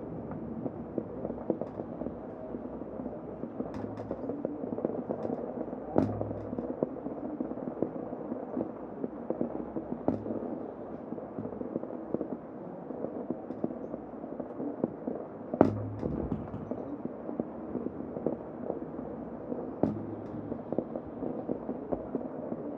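Heavy rain falling steadily: a dense hiss with a constant crackle of sharp drop taps, and two louder knocks, about a quarter of the way in and again about two-thirds in.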